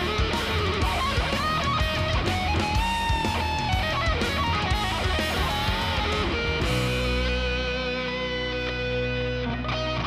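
Instrumental progressive rock: electric guitars over bass and drums, with a lead guitar melody that bends between notes. About two-thirds of the way in, the drums stop and a held chord rings on.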